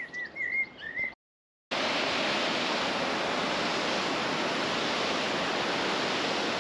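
A small bird chirps a few times for about a second, then the sound cuts out. After a short gap, a steady, even rushing noise, like running water or rain, runs on unbroken.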